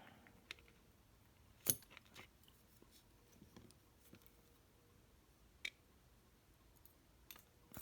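A few faint, sharp metal clicks and ticks from small parts of a disassembled lock cylinder being handled while its sidebar springs are picked out. Otherwise near silence.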